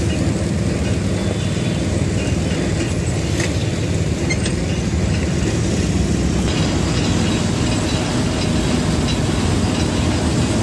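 Steady rumble of busy street traffic, mostly motorbikes passing.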